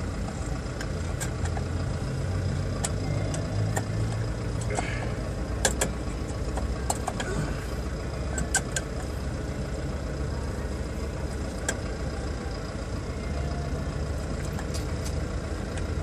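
Scattered sharp metallic clicks and taps of hand tools working on a bus's brake caliper and pads during a brake pad change, over a steady low engine hum like a vehicle idling.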